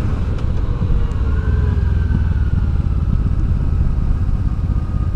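Honda Deauville V-twin motorcycle running steadily while under way, with a heavy wind rush over the microphone.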